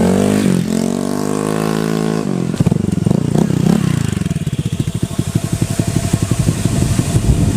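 Honda Click 150i scooter's single-cylinder four-stroke engine running through an aftermarket Akrapovic-style exhaust. It is revved for about two seconds, drops back, and settles into an idle with distinct, rapid exhaust pulses.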